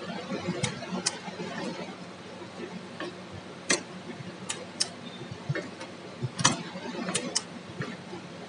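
Automatic chain making machine running, its tooling clacking sharply and unevenly as it forms wire chain links, over a steady low motor hum.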